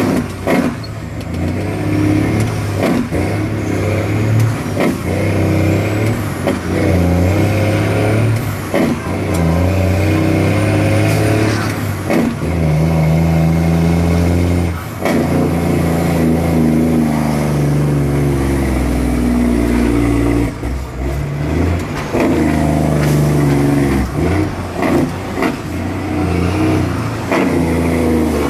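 A heavy truck's engine heard from inside the cab, pulling hard. Its pitch climbs and drops several times, as when shifting up through the gears.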